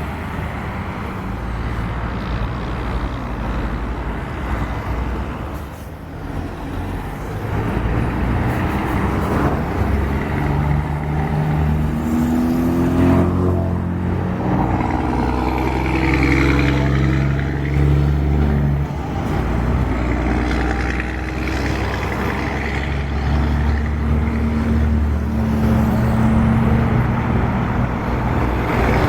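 Scania truck engine running with a loud, rumbling note, its pitch stepping up and down several times in the middle as it is revved.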